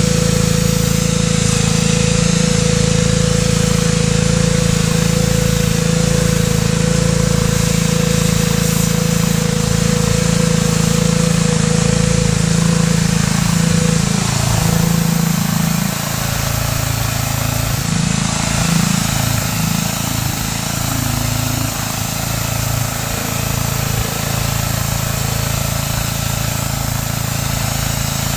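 Pressure washer running under load, a steady motor-and-pump drone under the constant hiss of its sand-laden water jet blasting rusty steel. The drone wavers about halfway through.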